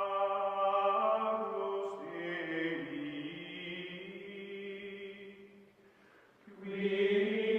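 Outro music of sustained, chant-like choir voices holding long notes. It fades almost away about six seconds in, then swells back up near the end.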